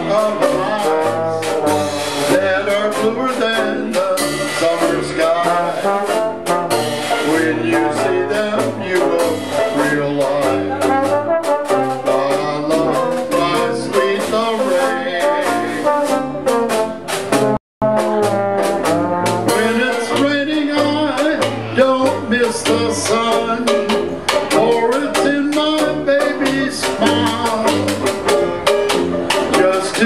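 Small traditional jazz band playing a brass-led tune, with trombone and sousaphone over banjo and drums. The music cuts out for an instant a little past halfway, then carries on.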